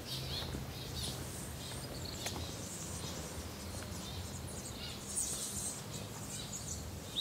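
Quiet outdoor ambience: scattered short, high bird chirps and insect sounds over a low steady hum, with a brief louder burst of chirping about five seconds in.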